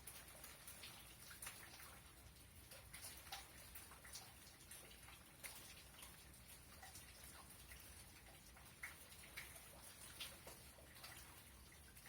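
Faint rain: scattered raindrops ticking irregularly, several a second, with no thunder in this stretch.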